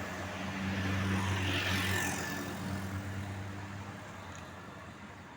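Tour bus engine passing by: a steady low hum with a rush of road and air noise that swells about two seconds in, then fades as the bus moves away.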